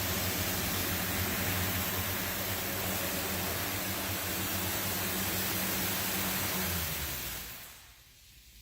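Automatic car wash machinery running: a steady rushing hiss over a low motor hum. The hum cuts off about seven seconds in and the rush dies away just after.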